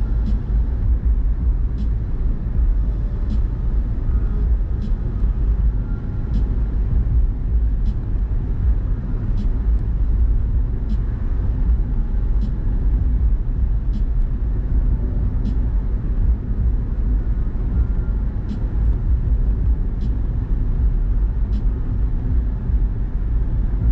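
Car on the move: a steady low rumble of road and engine noise, with a light tick about every second and a half.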